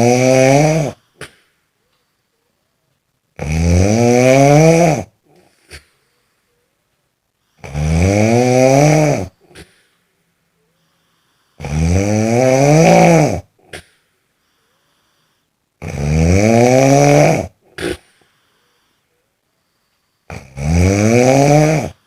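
Loud snoring in a steady rhythm: one long snore about every four seconds, each rising in pitch and followed by a short click.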